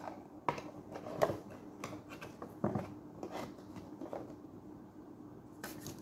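Cardboard box being handled: light knocks and scrapes as its flaps are folded shut and the box is turned over and stood on the table.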